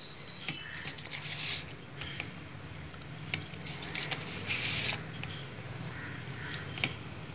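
Wooden rolling pin rolled over a stuffed puran poli dough on a round board: soft rubbing swishes, two clearer ones about a second in and near the five-second mark, with a few light taps, over a faint steady low hum.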